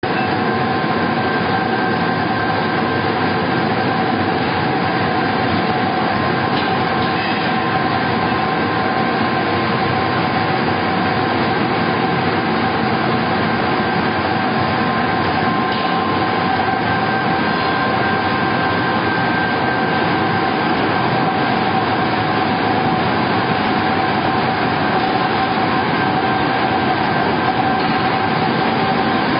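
Vertical wood pellet mill and its feed belt conveyor running under load, making wood pellets: a loud, steady machine noise with a few steady whining tones held throughout.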